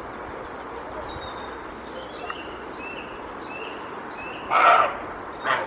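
Roe deer buck giving two harsh barks near the end, the first much louder and the second shorter: the alarm bark a buck gives when something disturbs him in his territory. Small birds chirp faintly in the background.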